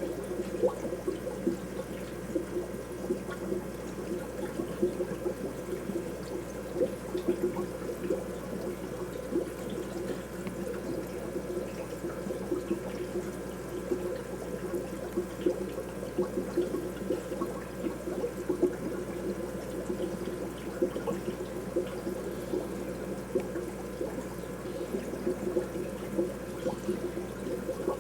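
Steady trickle and splash of water in a freshwater shrimp aquarium, a continuous patter of small irregular splashes.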